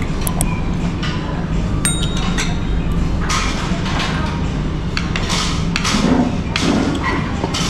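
Restaurant table sounds: cutlery and dishes clinking over a steady low hum, with one ringing metallic clink about two seconds in.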